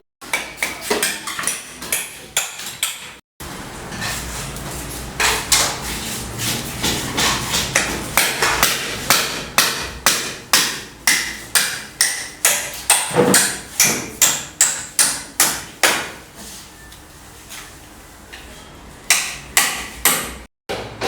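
Hammer blows, repeated in a steady run of about two strikes a second, with a few scattered strikes before and after.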